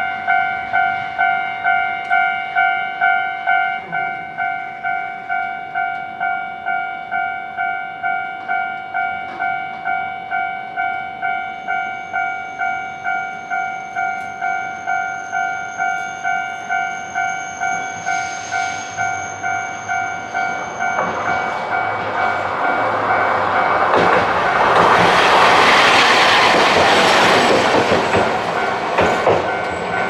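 Japanese level-crossing warning bell ringing its steady, rapid two-tone 'kan-kan' beat. Near the end a Hankai Tramway streetcar passes over the crossing, its rumble and wheel noise swelling to the loudest part, and the bell stops just as it has gone by.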